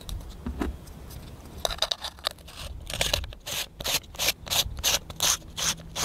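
Dead Air Mask .22 suppressor being screwed together by hand: the stainless steel cap's threads rasp against the titanium tube in quick repeated twists. The twists come about five a second, with a quieter stretch in the first second or two.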